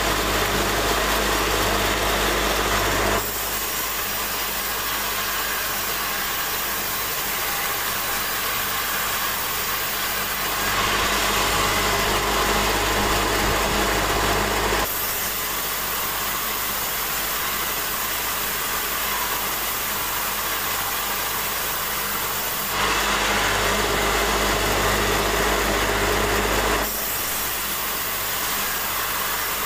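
Band saw running and cutting through a large wooden timber, a steady machine noise. It switches abruptly several times between a louder passage with a deep hum and a lighter, hissier one.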